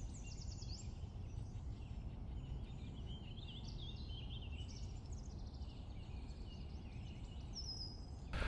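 Outdoor ambience: faint bird chirps and twitters over a low, steady background rumble.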